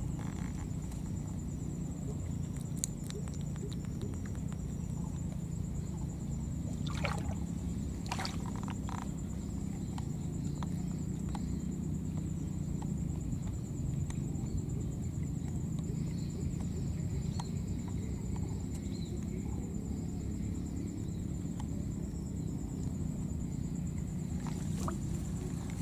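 Outdoor ambience: a steady high-pitched insect trill over a low rumble, with a few faint clicks and rustles.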